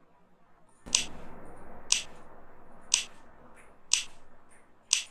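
Earbud latency-test app's test click, played through true wireless earbuds, sounding five times at a steady one-second rhythm: sharp, short clicks. A low rushing noise rises under the first click and fades by the third.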